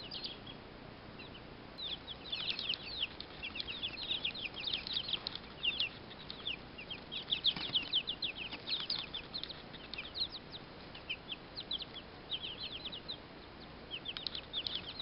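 A brood of baby chicks peeping, many short high falling cheeps overlapping, thickest in the middle and again near the end.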